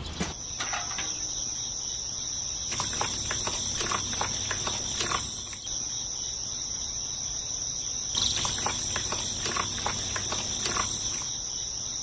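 A steady high-pitched insect trill, with scattered light clicks and taps as wet concrete is worked by hand among small gravel.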